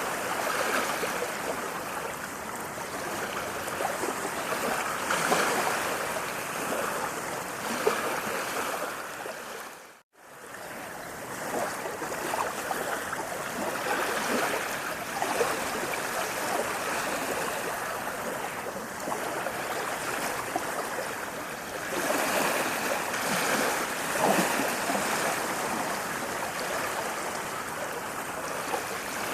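Running water splashing and rushing steadily. It dips to silence for an instant about ten seconds in, then comes back.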